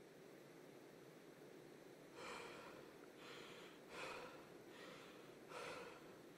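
A man breathing hard through his mouth, five faint short breaths about a second apart starting about two seconds in, over a low steady hiss.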